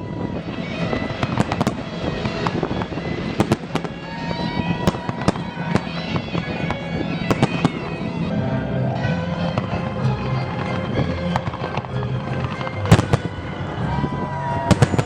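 Fireworks display: a steady run of sharp bangs and cracks from bursting shells, irregularly spaced, with music playing underneath.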